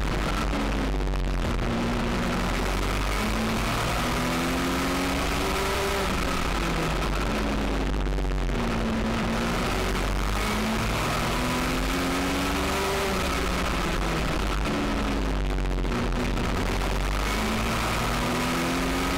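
U.S. Legend car's Yamaha motorcycle engine running at speed, its pitch repeatedly climbing as the car accelerates and dropping back as the driver lifts, over a steady rush of wind and road noise.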